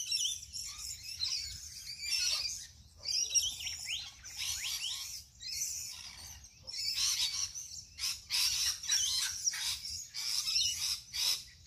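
Small birds chirping and twittering: a continuous chorus of high, quick calls, with a few fast rising whistles about four to five seconds in.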